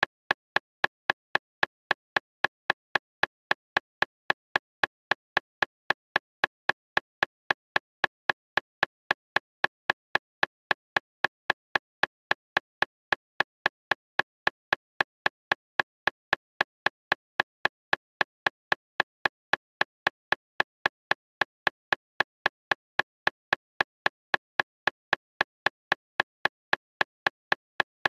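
Steady metronome-style electronic clicks, about two and a half a second, evenly spaced and unchanging, pacing a speed-reading exercise.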